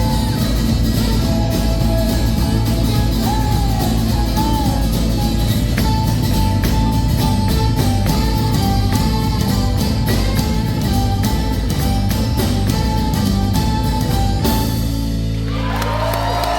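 Live rock band with guitars and a singer playing the closing part of a song. Near the end the band drops to a held low chord.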